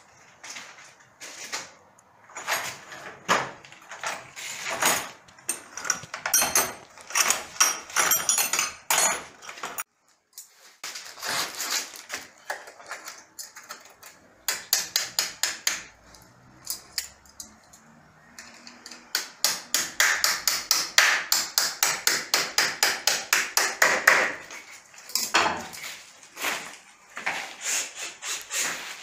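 Hammer blows against the frame of a balcony door being fitted: irregular strikes, with a fast steady run of about four blows a second for several seconds past the middle.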